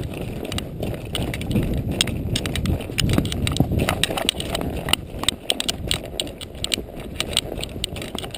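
Palomino Quarter Horse's hooves walking over a rocky trail, with many sharp clicks and knocks of shod hooves striking and loose rocks shifting underfoot, over a low rumble of wind on the microphone.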